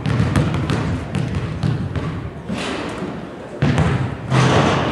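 Basketballs bouncing with sharp thuds on a gym floor over steady background chatter, with a louder burst of noise near the end.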